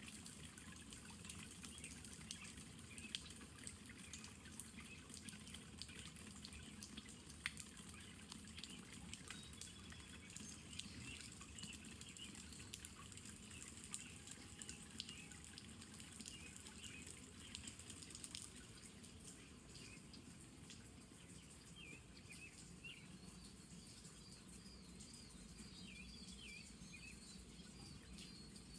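Faint rain: scattered drops dripping and tapping, thinning out after about two-thirds of the way through, with small birds chirping in short repeated notes.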